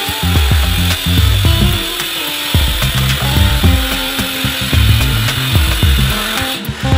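Background music with a heavy, rhythmic bass line and a steady beat.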